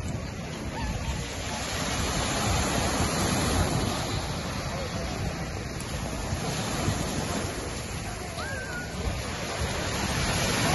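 Sea waves breaking and washing up a pebble shore, the surf swelling and easing in loudness.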